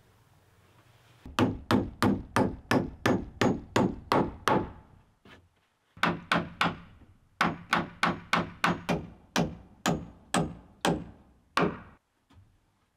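A hammer striking wood in quick, even blows, about four a second. The blows come in two runs with a short pause about five seconds in, and stop about a second before the end.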